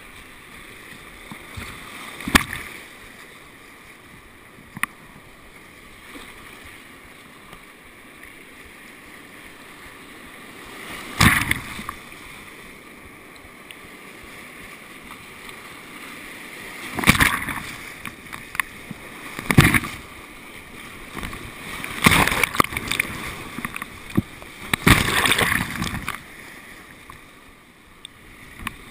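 Whitewater rushing around a kayak running a creek rapid, with a steady roar of water broken by several loud, sudden splashes and paddle strokes, the biggest bunched together in the last few seconds.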